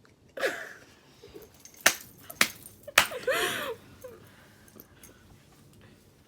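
Three sharp smacks about half a second apart, set between two short gliding vocal exclamations.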